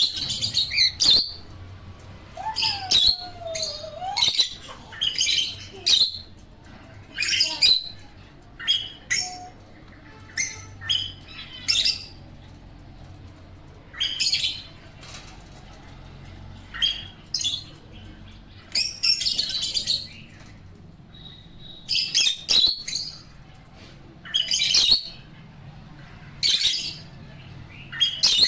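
Pet African lovebirds and a cockatiel chirping: short, shrill, high-pitched calls in quick clusters every second or two, with a fainter, lower gliding whistle about three seconds in.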